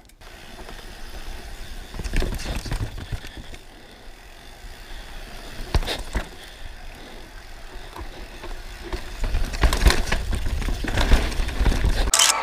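Downhill mountain bike rolling over a rough, rocky trail: a low rumble of tyres and wind buffeting the helmet camera's microphone, with a few sharp knocks as the bike hits rocks.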